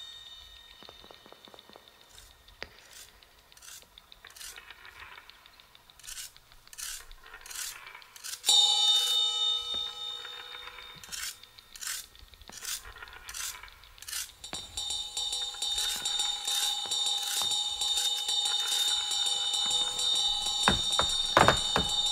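Metallic percussion: sparse light taps and clicks, then a struck ringing chord at about eight seconds. From about fourteen seconds a steady metallic ringing sets in with quick taps over it, growing louder.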